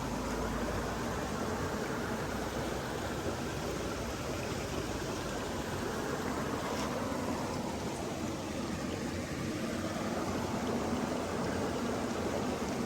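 Flowing water making a steady rushing sound.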